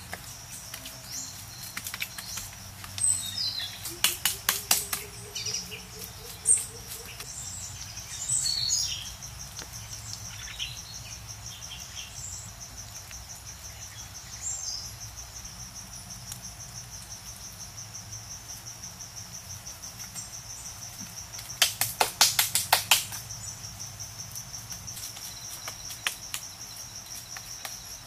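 Insects trilling steadily on one high pitch, with scattered bird chirps in the first third. Two short bursts of sharp clicks stand out, about four seconds in and again near the three-quarter mark.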